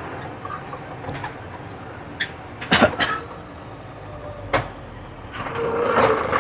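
Cab noise of a fully loaded truck running over a rough, potholed road: a steady engine and road hum with about four sharp knocks and rattles from the cab, getting louder near the end.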